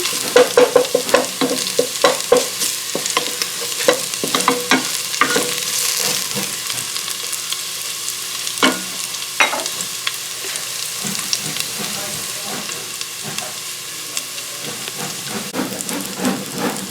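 Garlic frying in rendered chicken fat and a little cooking oil, sizzling steadily as it browns, while a utensil stirs it with quick scrapes and knocks against the pan, most often in the first few seconds.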